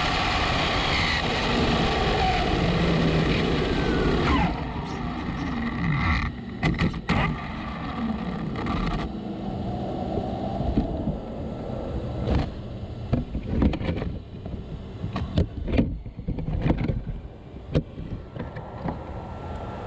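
Traxxas Slash Ultimate RC truck running fast on pavement, a loud rush of wind and tyre noise with a falling whine from its brushless motor as it slows. After about four seconds it goes quieter, with scattered clicks and knocks as the stopped truck is handled.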